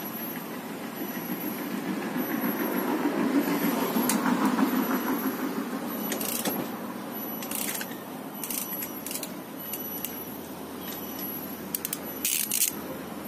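A vehicle going past, swelling to its loudest a few seconds in and fading away. Then sharp metallic clicks and clinks of a socket wrench working the car's wheel nuts, with a quick cluster near the end.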